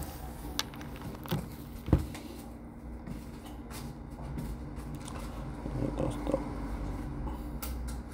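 Light clicks and taps of a smartphone and its small parts being handled on a repair bench, with one louder knock about two seconds in, over a steady low hum.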